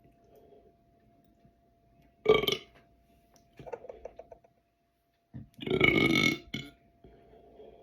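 A person belching: a short loud burp about two seconds in, a quieter rattling burp a second later, and a longer loud burp of about a second past the middle.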